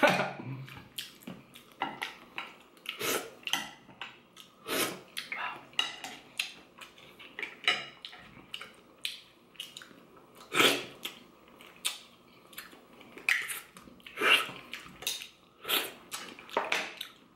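Cooked mussel shells clicking and clattering against each other and against a bowl as the mussels are picked apart by hand and with a fork. The clicks are sharp and irregular, about one or two a second.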